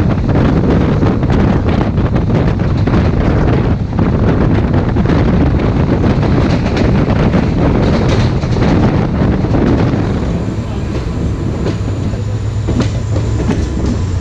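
Indian Railways passenger train running on the track, heard from the coach side: a steady rumble with frequent rail-joint clicks and wind. About ten seconds in it grows quieter as the train runs into a station, leaving a faint thin whine over the rumble.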